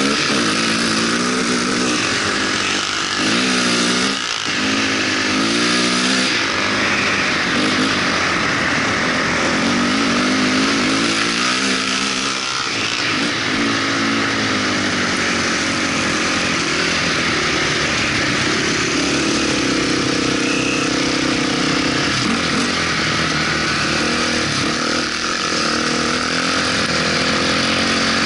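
Off-road vehicle engine being ridden hard across sand, its pitch rising and falling as the throttle is worked, settling into a steadier run after about twelve seconds, over a constant rushing hiss.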